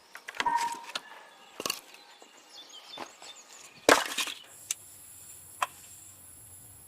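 Scattered sharp knocks and clatter of objects being handled, with one loud knock about four seconds in.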